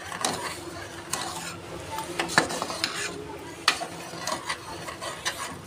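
A metal spoon stirring thick yoghurt-and-spice korma masala in an aluminium pressure cooker, scraping and knocking irregularly against the pot's sides and bottom.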